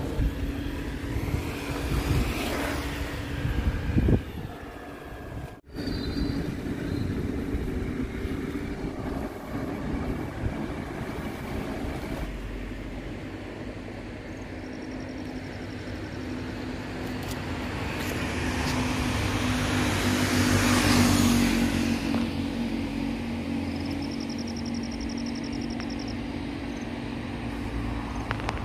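Outdoor road traffic: a steady low engine hum, with a vehicle passing that swells to its loudest about twenty seconds in and then fades. The sound cuts out briefly about six seconds in.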